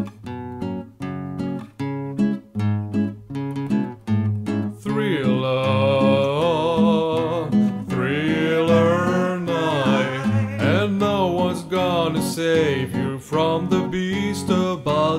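Country dance music: a strummed acoustic guitar in a quick, steady rhythm, then a voice singing over it from about five seconds in.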